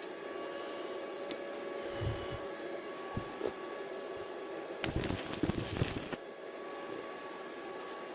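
Light knocks and clicks of handling, then a loud rushing noise with a few thumps in it for about a second and a half, from about five seconds in, over a faint steady hum.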